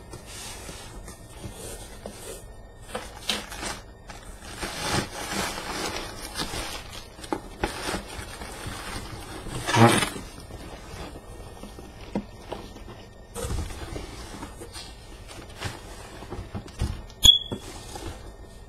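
Packaging being handled during an unboxing: irregular scraping, rustling and knocks, with a loud squeaky scrape about ten seconds in and a sharp click near the end.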